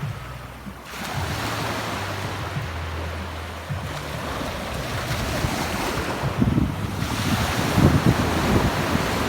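Sea waves washing ashore in a steady rush that swells after about a second, with wind buffeting the microphone in low gusts over the second half.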